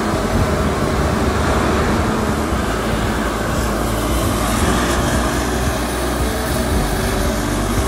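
Twin Otter turboprop engines running with a steady, loud rushing noise and a low hum beneath, as the plane moves along the runway.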